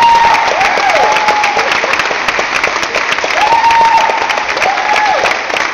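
Audience applauding loudly, many hands clapping at once, with repeated high calls from the crowd rising and falling over it.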